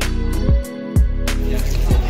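Background music with a heavy bass line and a steady drum beat; the bass drops out briefly just under a second in.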